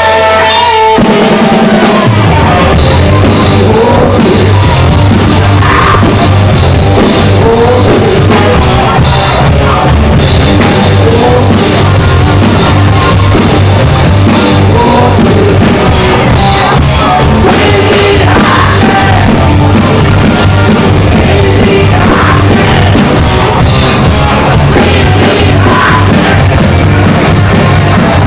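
Heavy rock band playing live and loud: electric guitars, bass guitar and drum kit, with a singer's vocals. About two seconds in the band drops into a heavy low riff that drives on.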